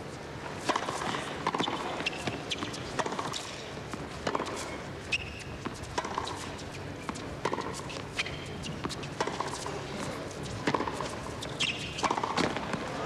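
Tennis ball struck back and forth in a long baseline rally: a steady run of sharp racquet hits and court bounces, about one every three-quarters of a second, over a faint crowd hush.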